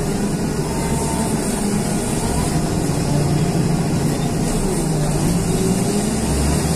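John Deere wheel loader's diesel engine running steadily, heard from inside the cab as the machine drives and turns, with a faint whine that rises and falls in pitch.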